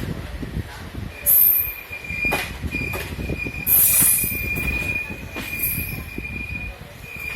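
Train's wheels squealing on the rails: a steady high whine, with two louder shrill screeches, about a second and a half in and about four seconds in, and scattered knocks from the wheels on the rails.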